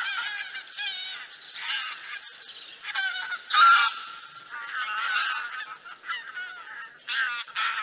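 Flock of wild geese honking, many short calls overlapping, with one louder call about three and a half seconds in.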